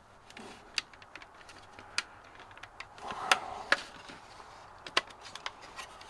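A plastic dash light panel and a screwdriver being handled: a handful of separate sharp clicks and taps, the two loudest just past the middle.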